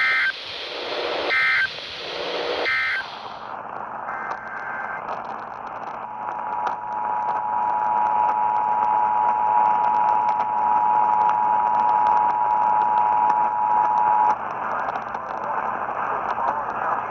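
Three short digital data bursts of an Emergency Alert System SAME end-of-message code over radio static. A few seconds later the steady two-tone EAS attention signal sounds for about eight seconds and cuts off, leaving hiss and crackle.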